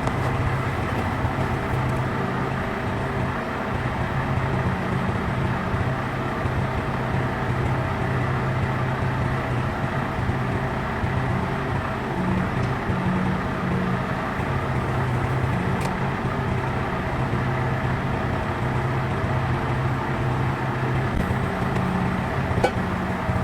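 An engine running steadily at idle, with a few faint clicks of metal work.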